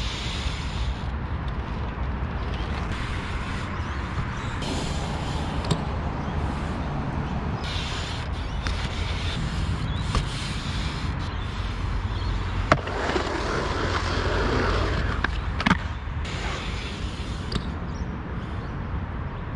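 BMX bike tyres rolling over a concrete skatepark, the rolling noise swelling as the bike passes close about two-thirds of the way in, with two sharp knocks of the bike landing or striking the concrete a few seconds apart, over a steady low rumble.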